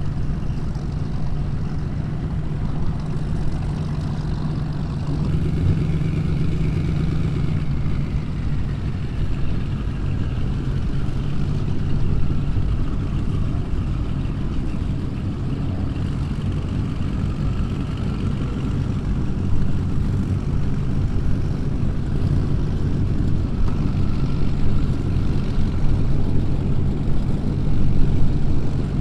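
Performance powerboat engines running at low speed, a steady deep rumble with slow shifts in pitch.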